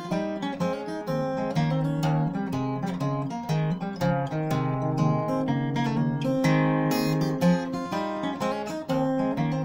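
Solo acoustic guitar played fingerstyle, with a capo on the neck: a brisk run of picked melody notes over a plucked bass line, an Irish traditional tune.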